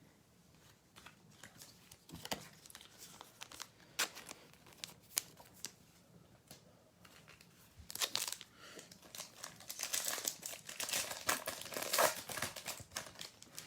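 A trading-card pack wrapper being crinkled and torn open. A few scattered handling clicks come first; about two-thirds of the way in comes a long stretch of dense crinkling, loudest near the end.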